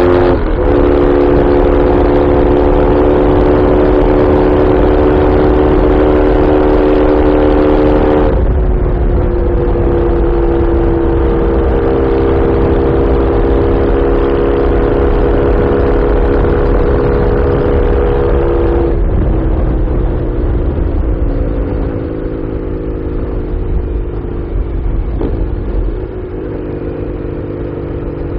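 Norton Commando parallel-twin engine and exhaust heard from the saddle at a steady cruise, with wind rumble on the microphone. The engine note steps down about eight seconds in and again about nineteen seconds in, and it gets quieter in the last third.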